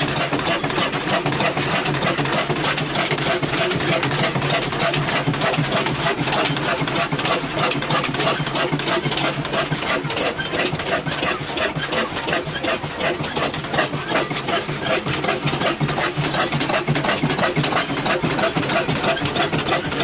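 Old Ruston & Hornsby stationary diesel oil engine with a heavy flywheel, running steadily at idle with an even, rapid firing rhythm.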